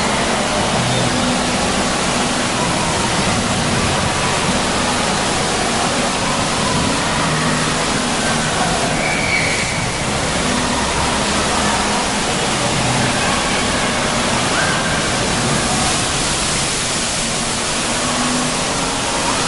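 Steady rush of water pouring and splashing in a children's splash-play pool.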